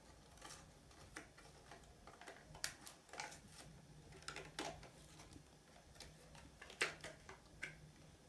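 Plastic blister pack of a toy car being picked open by hand: faint, irregular clicks and crackles of the plastic.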